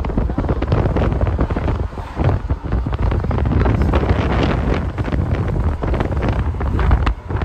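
Loud wind buffeting the microphone: a gusty, rumbling roar, heaviest in the bass.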